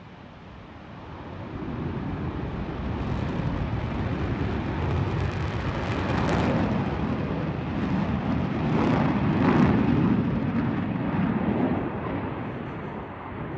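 An airplane flying past: engine noise swells over several seconds, is loudest around the middle, then eases off.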